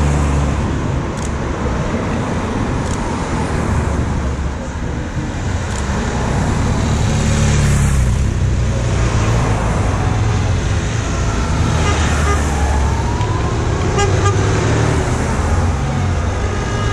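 Race convoy vehicles (team cars, a police motorcycle and an ambulance) driving past one after another, engines and tyres running on the road, with short horn toots.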